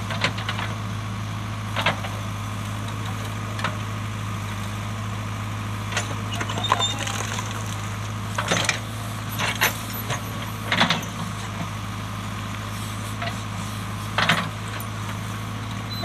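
JCB backhoe loader's diesel engine running steadily while its rear bucket digs through rocky soil. About nine irregular sharp clanks come from stones knocking against the steel bucket and against one another as it scoops and dumps.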